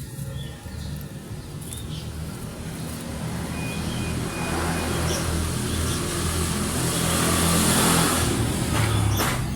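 A motor vehicle's engine running and passing close by, its noise swelling to a peak near the end and then falling away.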